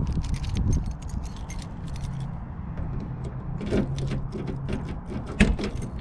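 Light clicks and clatter of the CR-V's rear hatch glass and its fittings being handled, with a sharper knock near the end, over a steady low hum.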